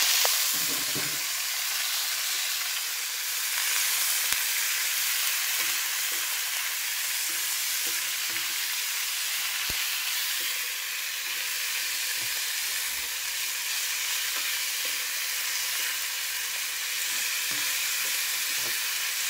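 Sliced bamboo shoots sizzling steadily in hot oil in a wok, stirred with a wooden spatula that scrapes and knocks lightly against the pan.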